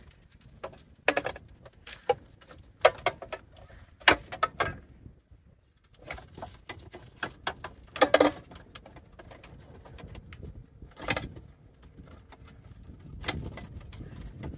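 Metal air cleaner parts being handled and lifted off a carburetor: scattered clinks and knocks at irregular intervals, some briefly ringing, with wind rumbling on the microphone.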